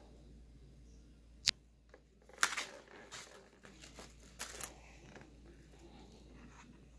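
Glossy pages of a large hardcover book being turned: a sharp tap about a second and a half in, then a rustling swish of paper a second later, with fainter paper rustles after.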